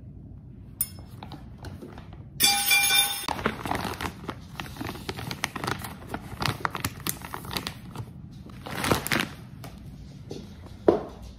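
Crinkling and rustling of a large plastic pouch of dried black soldier fly larvae being handled and carried, with a short, loud rasp about two and a half seconds in and a louder crinkle near the end.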